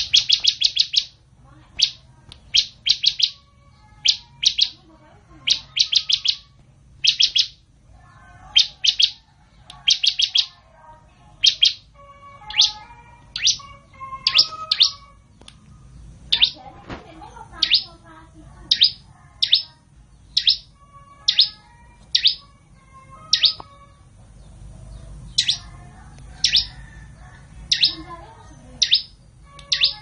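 Caged bar-winged prinia (ciblek) calling: short, high, sharp chirps, singly or in quick runs of two or three, repeated about once a second.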